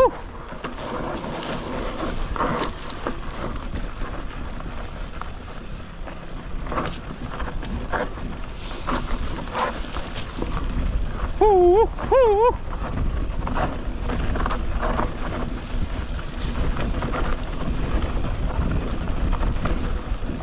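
Mountain bike riding down a rough trail, its tyres rolling over uneven ground with frequent clicks and knocks from the bike, and wind buffeting the microphone, heavier in the second half. A brief wavering vocal sound about twelve seconds in.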